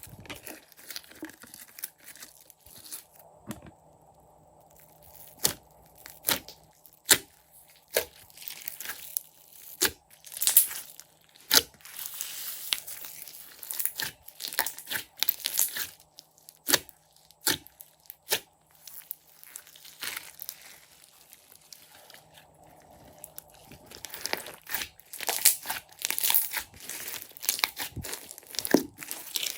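Hands squishing and stretching clear slime: irregular sticky pops and crackles as trapped air bursts, with a few loud sharp pops about ten seconds in.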